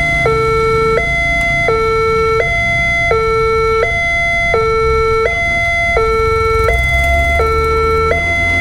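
Railway level-crossing warning alarm from the loudspeaker on the signal post: an electronic two-tone signal switching between a higher and a lower tone about every 0.7 seconds, warning that a train is approaching. A low rumble of passing motorbikes and cars lies beneath it.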